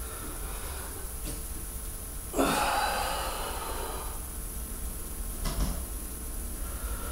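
A person's heavy breath out during a deep barbell deadlift, starting suddenly about two seconds in and fading over a second or so, with a couple of shorter, fainter breaths around it.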